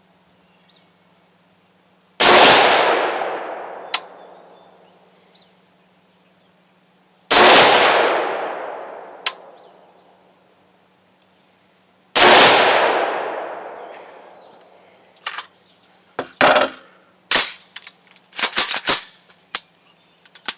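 Three shots from a Head Down HD15 AR-15-style rifle, about five seconds apart, each followed by a long echo. Near the end comes a quick run of sharp metallic clanks and clicks.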